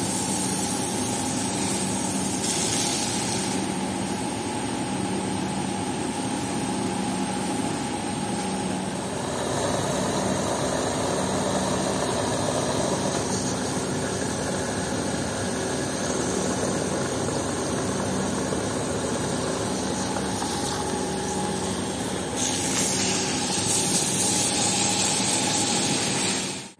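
Pressure washer running: a steady machine hum under the hiss of a water jet spraying onto a wet carpet and tiled floor. The spray hiss gets louder near the end.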